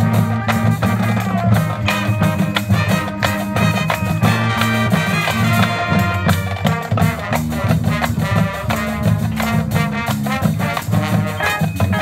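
High school marching band playing on the field: brass and drums with a steady beat.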